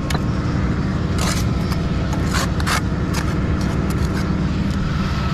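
An engine running steadily at idle, with a few short scrapes of a trowel working mortar around a pipe.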